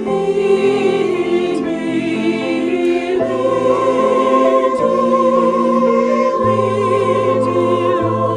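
Sacred choral music: voices singing held notes with vibrato over a sustained instrumental accompaniment.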